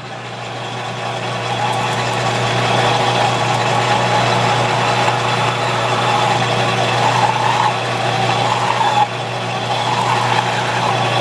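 A metal lathe turning a wooden handle, the lathe tool cutting it with a steady motor hum and a rough cutting noise that builds over the first couple of seconds. The cut has a funny sound that the machinist takes for chatter.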